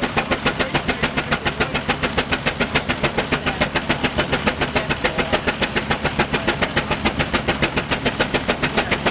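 Steam traction engine working under load, belted to a dynamometer: its exhaust beats up the stack in a fast, perfectly even rhythm that holds steady.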